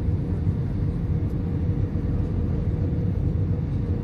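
Steady cabin noise inside an Airbus A320 airliner in flight: a low, even rumble of engines and airflow with a faint steady hum above it.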